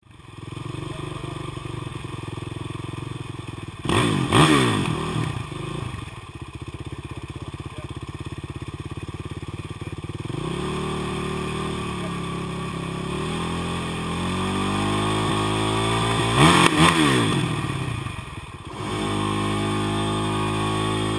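Kawasaki KLX450R's single-cylinder four-stroke engine running in gear with its wheel off the ground and spinning. It idles steadily and is revved sharply twice, about four seconds in and again near sixteen seconds.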